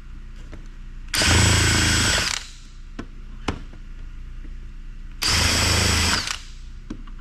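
Power drill fitted with a long, thin Phillips bit, run in two short bursts of about a second each to back out small screws, with light clicks of handling between the bursts.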